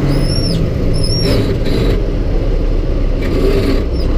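Semi-truck diesel engine running under the cab floor, with steady low rumble and road noise. Two short high-pitched chirps come about a second apart near the start.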